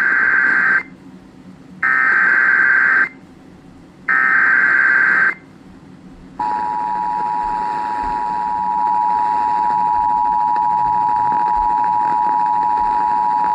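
Emergency Alert System signal: three short bursts of buzzing SAME header data tones, then about six seconds in the steady two-tone EAS attention signal starts and holds. The header and tone mark the start of an emergency alert, here a severe thunderstorm warning.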